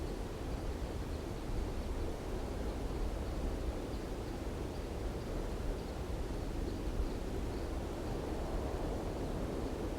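Strong wind blowing steadily, a deep noise with small swells and no single gust standing out.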